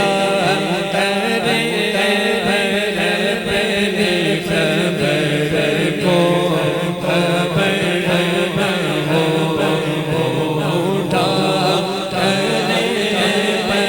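Layered voices chanting a melody, the vocal backing between verses of a naat.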